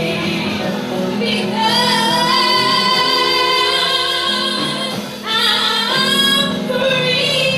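A young female singer singing a gospel song into a microphone over a backing accompaniment, holding long notes with a brief drop near the middle.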